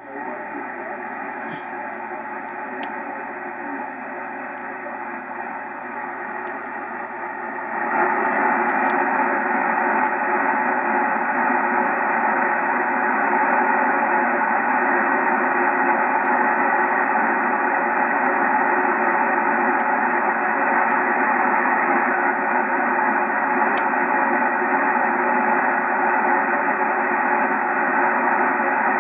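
Amateur radio receiver tuned to the 10-meter band, giving out steady static hiss through its narrow voice passband, with a weak single-sideband voice transmission buried in the noise. The audio jumps louder about eight seconds in.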